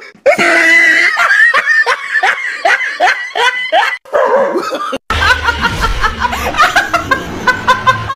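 People laughing hard, in quick repeated bursts of laughter. About five seconds in there is an abrupt cut to another burst of laughter over a steady low hum.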